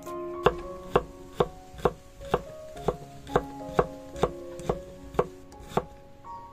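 Kitchen knife chopping garlic cloves on a wooden chopping board: about a dozen even knocks, roughly two a second, over soft guitar music.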